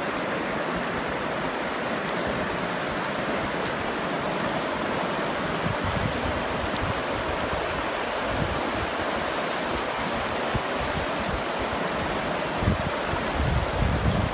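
River rushing over rocky riffles and small rapids, a steady even rush. From about six seconds in, wind gusts buffet the microphone in low rumbles that are strongest near the end.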